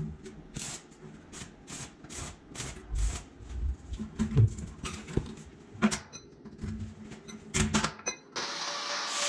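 Quick light taps and scrapes of hand work on a steel stair railing during fitting, about two to three short strokes a second, thinning out later. Near the end they give way to a steady hiss.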